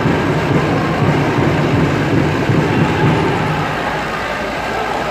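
Steady hubbub of a crowd in a reverberant sports hall: many voices blurred into a continuous low murmur.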